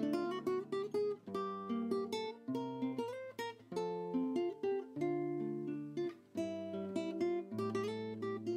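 Background music: acoustic guitar playing plucked notes and strummed chords.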